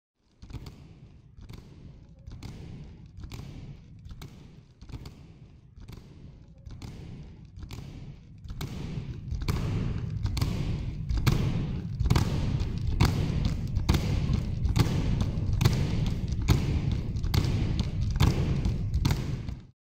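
Dancers' feet stamping in unison on a stage floor, a steady beat of about three stamps every two seconds that grows louder about eight seconds in and stops abruptly near the end.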